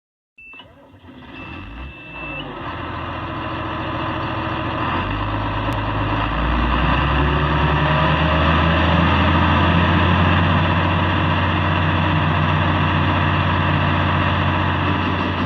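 Combine harvester engine starting up and throttling up, with a steady high warning tone in the first two seconds. The engine gets louder and its pitch steps up about five and six seconds in, then runs steadily.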